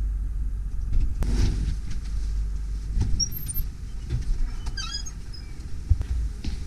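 Footsteps and a low handling rumble from a handheld phone camera on the move, with a few sharp knocks and short squeaks near the middle.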